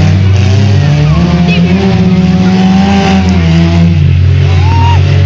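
Loud engines of racing vehicles running hard, the pitch rising and falling as they rev.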